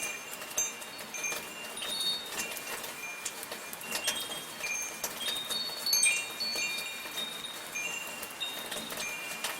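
Metal wind chimes ringing irregularly in high, overlapping tones over steady soft rainfall.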